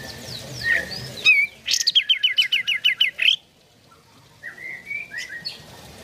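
A bulbul of the kind kept in Indonesia as the kapas tembak sings a fast run of about a dozen quick down-slurred notes lasting about a second and a half, then after a short pause gives a few short rising whistles.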